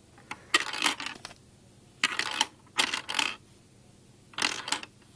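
Gumballs dropped one after another into a Lego gumball machine, clattering and rattling against the plastic bricks in about five short bursts.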